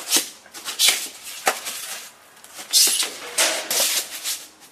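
Packaging being handled while boxes are opened: cardboard and plastic rustling and crinkling in irregular bursts.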